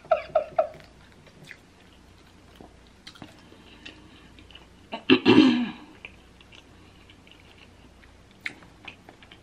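A person chewing and biting into a sauce-covered boiled prawn close to the microphone, with wet mouth clicks and smacks. Three short hums at the start and a louder vocal sound about five seconds in.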